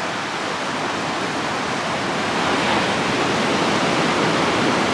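Ocean surf breaking on the shore, a steady rushing wash of waves that swells a little louder about halfway through.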